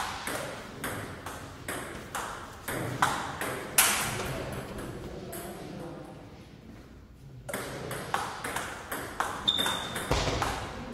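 Table tennis rally: the ball clicks back and forth off bats and table every half second or so. There is a gap of about two seconds between points before another rally, which brings a short high squeak and a low thump near the end.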